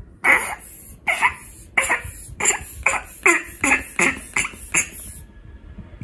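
Naughty Noisy Animals pig slime toy making squelchy fart noises as a rubber bulb pump squeezes air through the slime. There are about ten short blasts in quick succession, each falling in pitch, stopping a little after five seconds in.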